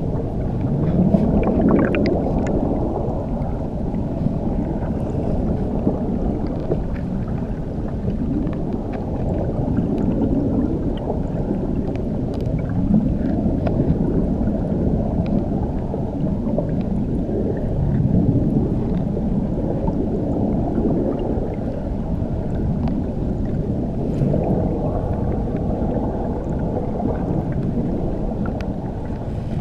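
Waterfall heard underwater: a muffled, low rushing churn of turbulent water with all its sound in the low range, swelling and easing every few seconds, with a few faint ticks.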